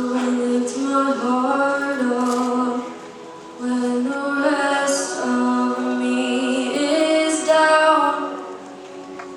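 A cappella vocal group singing in close harmony, with backing voices holding a steady low note under the moving upper parts. The singing drops in level briefly about three seconds in and again near the end.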